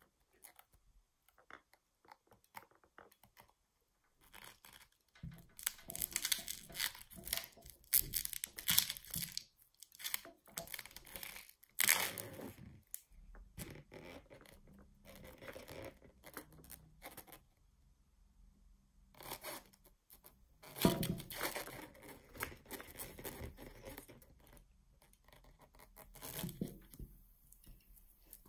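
An inflated latex balloon is squashed under a figurine's base, the rubber rubbing and creaking against it. This comes in stretches of several seconds with quieter gaps, and the balloon does not pop.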